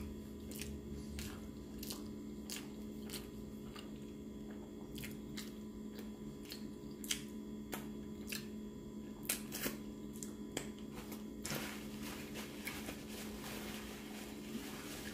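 Close-up chewing of a taco, with soft wet mouth clicks scattered throughout over a steady low hum. Near the end, a paper napkin rustles as the mouth is wiped.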